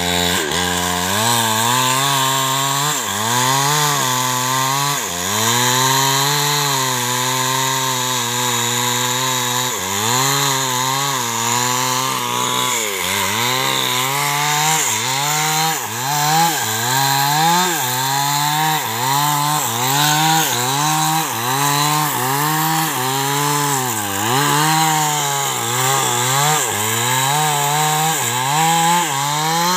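Small chainsaw cutting into the trunk of a large albizia tree. The engine holds a steady high note, and its pitch sags as the chain bites and picks back up again and again. In the second half it rocks through the cut about once a second.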